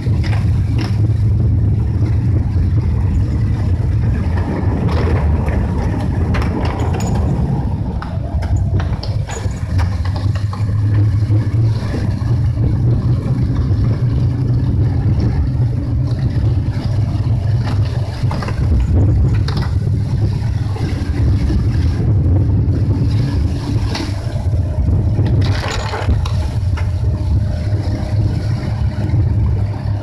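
Car driving on a rain-soaked road in a typhoon, heard from inside the cabin: a steady low rumble of engine and tyres on the wet surface, with rain and the windscreen wipers on the glass and a few sharper knocks.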